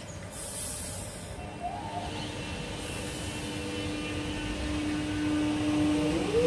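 Electric suburban train starting to depart a station: two short hisses, then a steady electric motor whine that grows louder and begins to rise in pitch near the end as the train starts to move.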